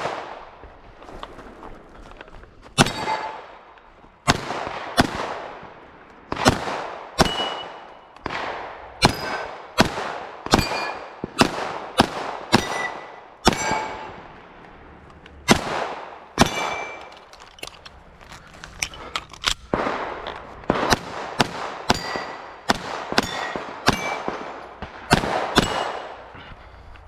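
A string of gunshots fired at steel targets, irregular at about one to two a second, many of them followed by the short ring of a struck steel plate.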